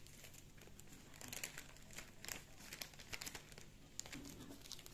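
Thin plastic bags crinkling faintly in short, irregular crackles as small zip bags of diamond-painting drills are handled.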